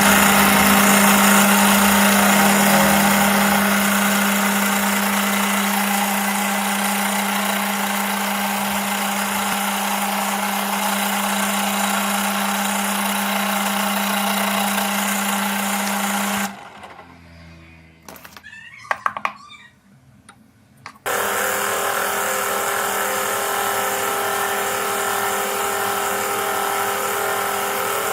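An electric power tool running steadily with a constant motor hum. It stops about sixteen seconds in and starts again after a pause of about four seconds, now with a higher hum.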